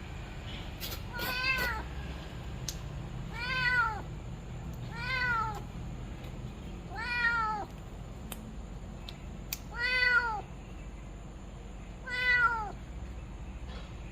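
Tomcat impaled on an iron fence spike, crying in pain: six drawn-out meows about two seconds apart, each rising then falling in pitch. A few faint clicks fall between the cries.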